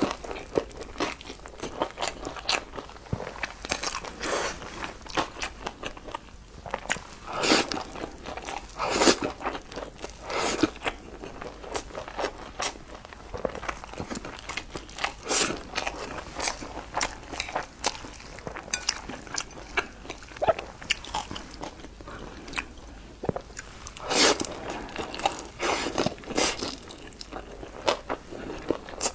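Close-up eating sounds: wide, sauce-coated strips being slurped from chopsticks and chewed, with sharp wet mouth sounds at irregular intervals.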